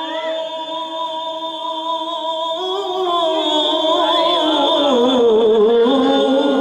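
A voice singing devotional verse in a slow chant, holding long steady notes and then winding through ornamented glides in pitch in the second half.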